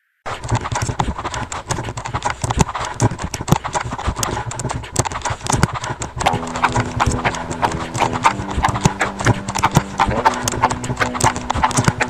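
Noise-music track built on a synthesizer and sequencer: a dense, irregular clatter of sharp clicks and knocks starts abruptly, and about six seconds in a low sustained synth bass tone joins under it, stepping to a new pitch twice.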